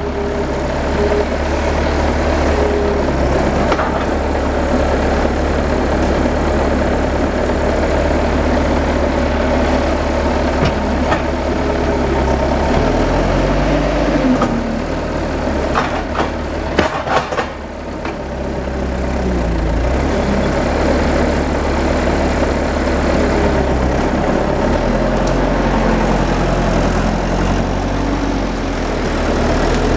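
Engine of a heavy machine running, its speed rising and falling several times as it works, with a few sharp clanks about sixteen to seventeen seconds in.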